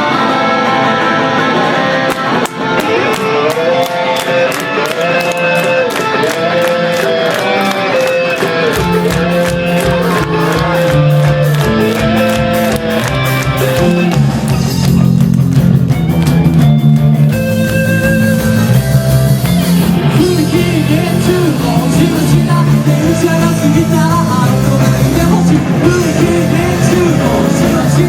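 Live rock band playing a song: the guitar part over quick, even cymbal ticks opens it, and bass and drums come in full about nine seconds in, after which the whole band plays on.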